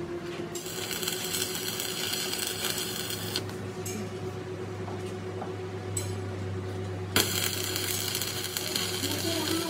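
Electric arc welding on a steel excavator swing pinion shaft: the arc crackles and hisses for about three seconds, stops, and then strikes up again suddenly about seven seconds in. A steady low hum fills the pause between the two runs.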